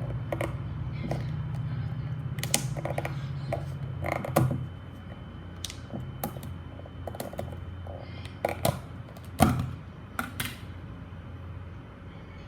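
A slime kit's packaging being opened by hand: scattered clicks, snaps and creaks, the loudest snap about nine seconds in, over a low rumble that stops about four and a half seconds in.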